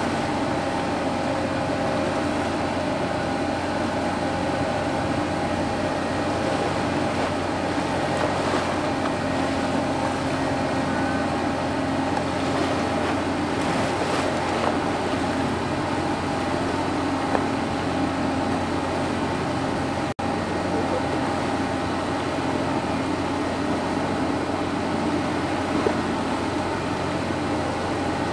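Steady machinery drone from the high-speed ferry Natchan World as it lies at the quay before departure, an even hum with a few held tones in it. The sound drops out for an instant about twenty seconds in.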